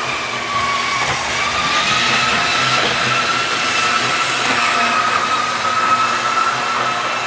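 Vintage Tri-ang model train motors whining steadily as the trains run around the track, the pitch wavering slightly as they go. The whine is the normal running noise of these old Tri-ang motors.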